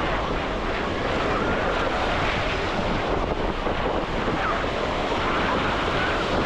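Wind buffeting the microphone over the steady rush of surf on a sandy beach.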